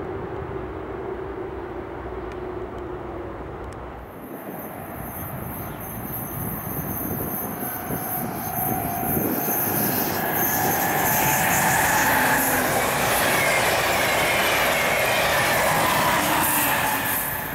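IRE200 push-pull train with a Siemens Vectron class 193 electric locomotive passing at speed. Its rolling noise and shifting whining tones build up over the last several seconds to a loud pass close by, then drop off suddenly at the end.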